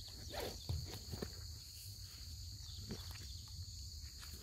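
Steady, high-pitched chorus of insects trilling in the vegetation, with a low rumble underneath and a few soft rustles of steps in the first second or so.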